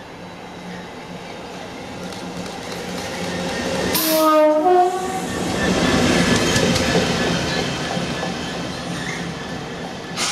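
Class 66 diesel-electric locomotive running light, approaching and passing close at speed. Its two-tone horn gives a short blast, a low note then a high note, about four seconds in. The engine and the wheels on the rails then build up loud as it goes by and fade away as it recedes.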